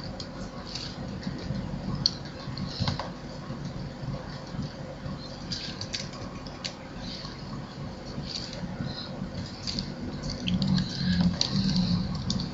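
Scattered clicks of a computer keyboard and mouse as spreadsheet cells are selected and text is typed, over a steady low background hum.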